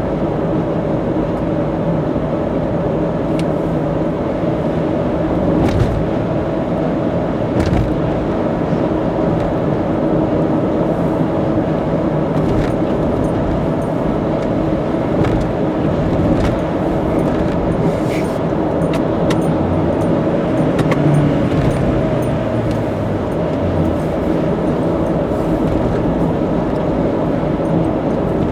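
Car cruising on an expressway: steady tyre and road drone with engine hum, heard from inside the car, with a few brief light clicks or knocks.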